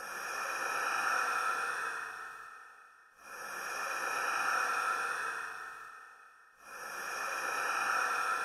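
Hissing noise that swells quickly and fades slowly three times, about every three seconds, with faint steady high tones running through it.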